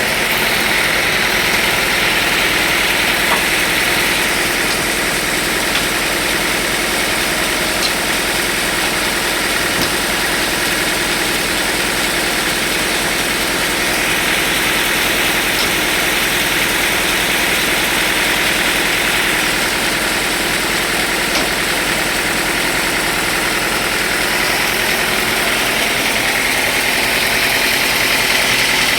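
Sawmill machinery running steadily, an even engine-like hum that holds the same level and pitch throughout.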